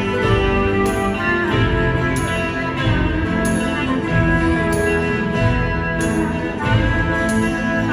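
Live rock band music: guitar over bass and drums, with cymbal hits about every half second to second, loud and steady.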